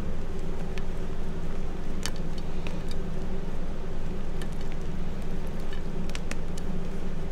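Reformed gym chalk chunks and powder crumbling and crunching between fingers, in scattered small crackles, over a steady low background hum.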